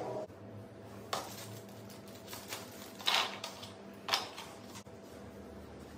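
Small metal screws and a key clinking and rattling in a plastic accessory bag as it is handled, in a few short bursts about 1, 3 and 4 seconds in, over a steady low hum.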